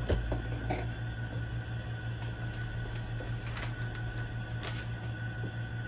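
Paper and a notebook being handled on a desk: a few short knocks and rustles, the sharpest just at the start, over a steady low room hum.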